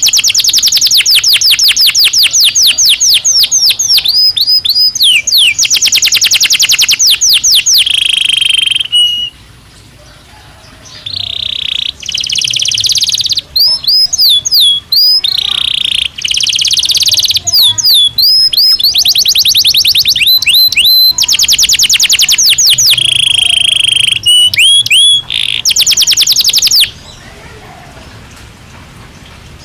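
Belgian canary singing: fast trills and rolling runs of rapidly repeated notes, in long phrases with short breaks between them. There is one longer pause about nine seconds in, and the song stops about three seconds before the end.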